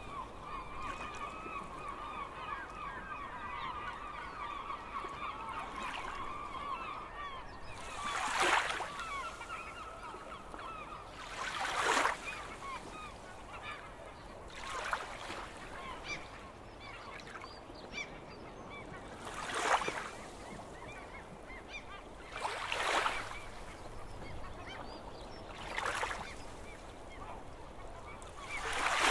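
Seagulls calling in a rapid chattering run for the first several seconds, with a few fainter calls after it. Sea waves surge and break about every three to four seconds, seven times, each surge louder than the calls.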